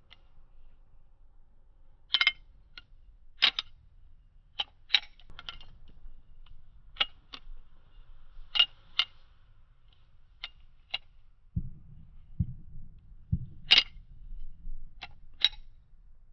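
Balisong (butterfly knife) being twirled, its handles clacking together in sharp metallic clicks at irregular intervals. A few dull low thumps come about three quarters of the way in.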